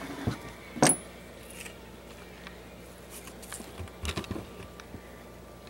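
Steel parts of a .22 LR bolt-action receiver being handled on a wooden table: a sharp metal clack about a second in, then a few lighter knocks and clicks around four seconds in.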